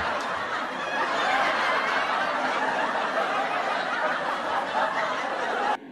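A crowd laughing steadily after a joke's punchline, cutting off abruptly near the end.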